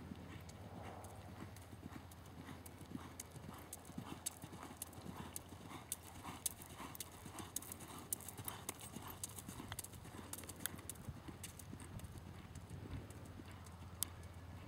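Quarter Horse gelding's hooves on a sand arena floor under a rider, an even clip-clop of about two to three footfalls a second, with a few sharper clicks here and there.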